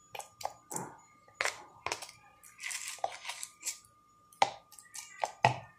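A metal spoon scraping and tapping against a cup of frozen mashed banana: a string of irregular clicks and short scrapes.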